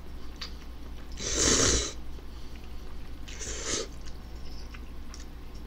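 Instant ramen noodles slurped into the mouth twice: a loud slurp about a second and a half in and a shorter one about three and a half seconds in, then faint clicks of chewing.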